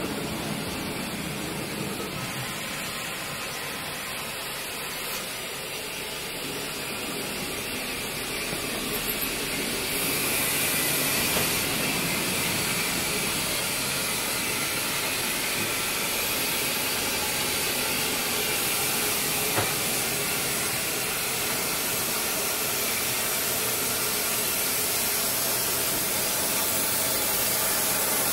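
Steam locomotive 34027 Taw Valley, a rebuilt Bulleid West Country class pacific, giving off a steady hiss of steam that grows louder and higher about ten seconds in, with a single light knock about two-thirds of the way through.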